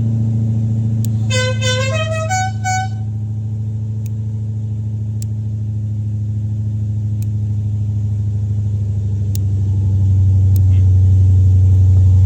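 Dixie musical air horn sounding a short run of about five notes that climb in pitch, lasting under two seconds and then stopping, over a steady low hum that grows louder near the end.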